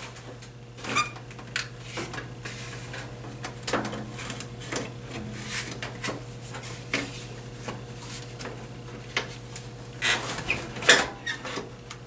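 Plastic front grille of a Carrier window air conditioner being worked loose and pulled off: a series of clicks, knocks and rattles, the loudest near the end, over a steady low hum.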